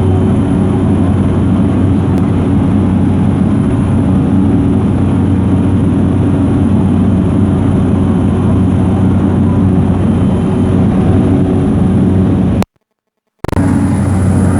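Aircraft engines droning steadily in flight, heard from inside the passenger cabin as a loud, even low hum. The sound cuts out completely for under a second near the end, then returns unchanged.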